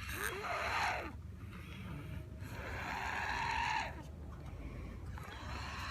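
Snoring: two noisy sleeping breaths, a short one at the start and a longer one of about two seconds, the longer one with a faint whistling note.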